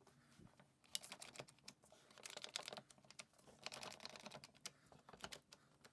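Faint, irregular clicking and a few brief scrapes from clamps being handled and tightened on a glued-up wooden box.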